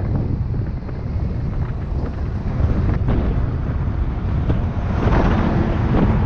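Heavy wind buffeting on a bike-mounted camera's microphone at high cycling speed, with a constant low rumble. About five seconds in, a rushing swell rises as a semi truck passes close by.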